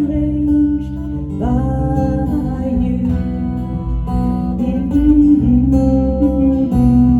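A band playing a guitar-led passage of a song, sustained notes ringing over a steady low bass line.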